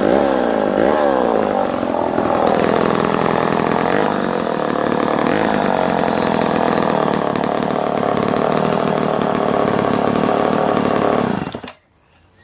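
Homelite Super XL 12 Automatic 58cc two-stroke chainsaw revving up and down a few times, then running steadily until it is switched off and stops suddenly near the end.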